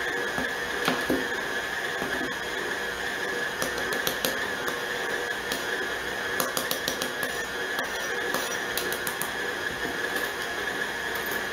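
KitchenAid stand mixer running steadily as it kneads bread dough, with a constant motor whine. Over it come scattered clinks and scrapes of a metal measuring cup scooping flour from a glass canister, most of them in the middle.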